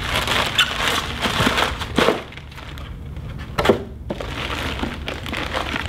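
Plastic packaging rustling and crinkling as packing material and a polystyrene foam insert are handled in a cardboard box, with two short sharp sounds about two seconds and three and a half seconds in.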